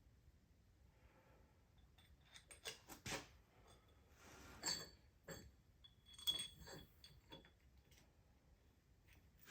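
Light metallic clinks and taps of tools and parts being handled. They come in a scattered cluster from about two seconds in to about seven and a half seconds, over otherwise quiet room tone.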